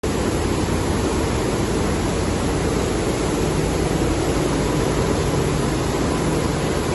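High-speed Tetra Pak packaging machinery running on a factory floor: a loud, steady, even mechanical noise with no distinct beat.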